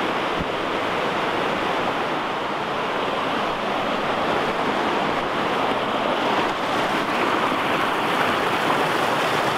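Steady rush of whitewater on the South Fork Snoqualmie River as it cascades over and around boulders below Twin Falls, an even noise with no breaks.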